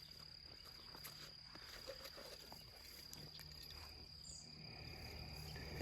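Faint, steady high-pitched insect trill, with a few light clicks.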